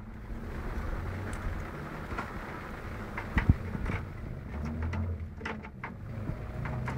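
Scattered clicks and light knocks of computer parts and cables being handled and fitted in a PC case, with one sharper knock about three and a half seconds in, over a low steady hum.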